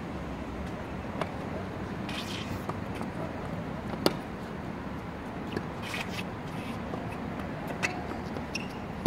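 Tennis ball struck back and forth by rackets in a singles rally on a hard court: a string of sharp pops every one and a half to two seconds, the loudest about four seconds in, with brief shoe scuffs on the court between hits, over a steady low hum.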